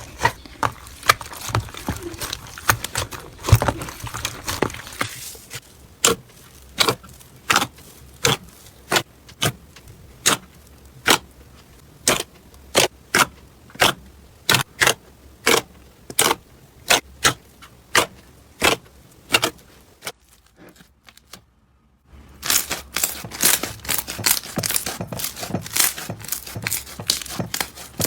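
Slime being handled by hand for ASMR, crackling and popping as it is pressed. Dense crackly squishing gives way to a long run of evenly spaced sharp pops, about one and a half a second, then after a short lull dense crackling returns.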